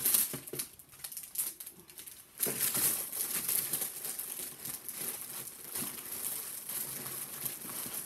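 Plastic bags and packaging crinkling and rustling as jewelry pieces are picked through and handled, with many small crackles. It gets louder about two and a half seconds in.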